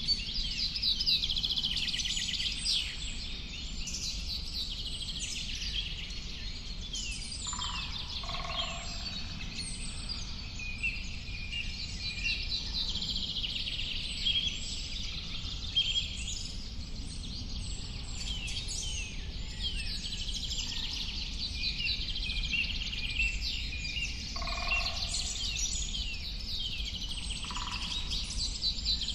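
A dense chorus of many songbirds chirping and trilling, with a lower call standing out twice, over a steady low background rumble.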